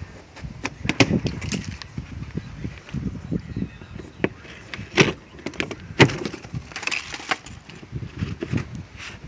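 Irregular knocks, cracks and snaps of packaging being handled and pulled apart, the sharpest about a second in and twice more around five and six seconds in.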